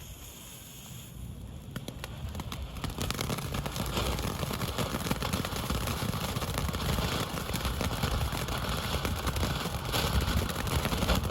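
Small consumer firework fountain burning: a hissing spray, thick with fine crackles, that starts about a second in, builds, and runs steadily from about three seconds in.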